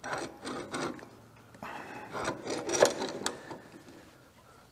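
Metal parts clinking and clattering as a hydraulic control valve with steel brackets is handled and set onto its mounting plate, with one louder knock a little past halfway.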